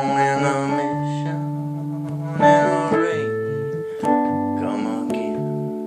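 Electric piano or keyboard playing sustained chords in a slow ballad, a new chord struck every second or two, with a man's singing voice coming in briefly over it a few times.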